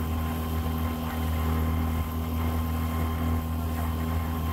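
Outboard motor of an inflatable dinghy running steadily underway, a constant low hum with wind on the microphone.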